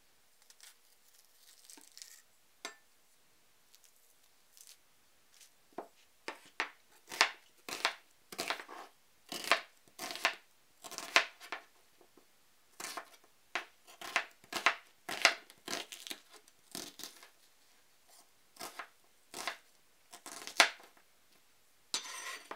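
A chef's knife slicing an onion half on a cutting board: each cut is a short, crisp crunch through the onion layers ending on the board, at an irregular pace of about one to two cuts a second. Before the cutting starts there are a few seconds of faint handling, and just before the end there is a longer rasp.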